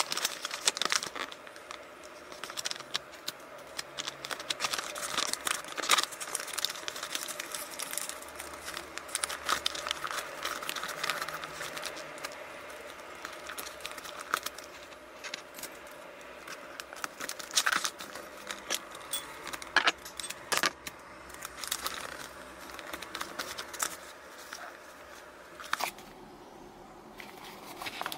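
Gift-wrapping paper crinkling and rustling as it is folded and creased around a small box, with many sharp crackles as the folds are pressed down.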